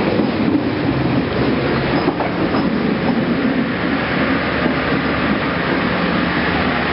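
Passenger train running: a steady rumble with the rattle and clatter of the carriage and its wheels on the rails.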